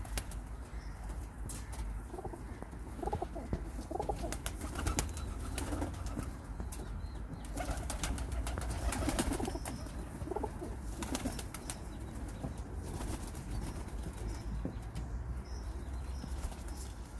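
Domestic pigeons in a loft cooing, with wings flapping and scattered sharp clicks, over a steady low rumble.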